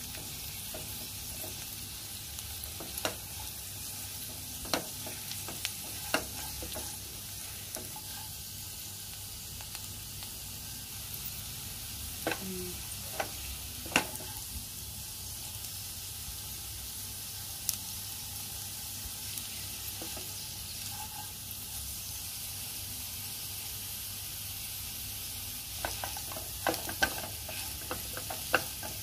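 Potatoes and French beans sizzling in a nonstick frying pan as they are stirred with a silicone spatula. Occasional sharp knocks and scrapes of the spatula against the pan come through, the loudest about halfway through and several near the end.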